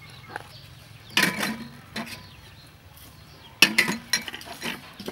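A wooden spoon stirring and scraping against a stainless steel mixing bowl, in two bursts of knocks and scrapes: one about a second in, one a little past halfway.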